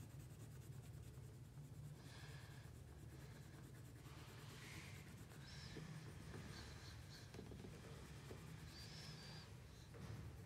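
Red crayon scribbling on paper, faint and scratchy, in quick back-and-forth strokes as the hat area of a drawing is filled in.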